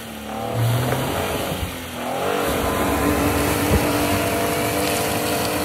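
Car engine revving, its pitch swinging up and down for about two seconds, then held high and steady: the car is stuck in mud and water and trying to drive out.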